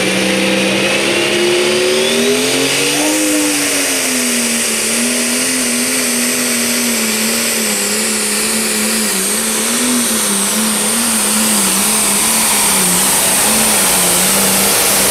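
Turbocharged diesel engine of a pro stock pulling tractor at full throttle under heavy load as it drags the sled down the track. Its pitch wavers up and down throughout, with a rise and dip a few seconds in.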